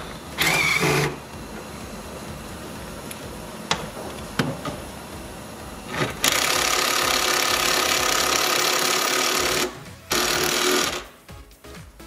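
Cordless impact wrench hammering in bursts while breaking loose the 18 mm seat-mounting nuts and bolts: a short burst about half a second in, a long burst of about three and a half seconds from about six seconds in, and another short one near ten seconds. A few light clicks of the socket on the nut fall between the bursts.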